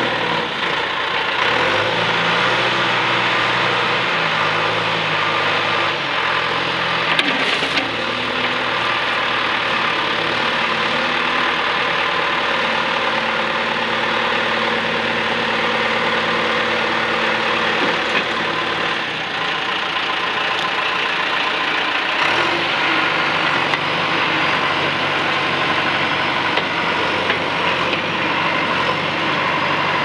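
John Deere 310E loader backhoe's four-cylinder diesel engine running as the machine drives, its engine speed shifting several times, about a quarter of the way in and again past the middle.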